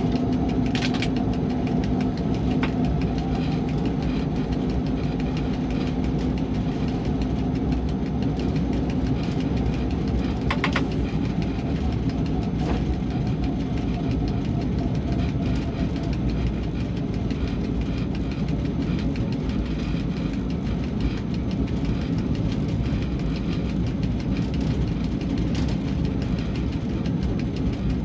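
Steady drone of an ST44 'Gagarin' diesel locomotive's two-stroke V12 engine and running gear, heard in the cab, with a few brief clicks.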